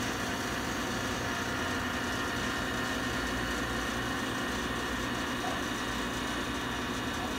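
Commercial refrigerator's hermetic compressor running with a steady hum, started through a universal start relay.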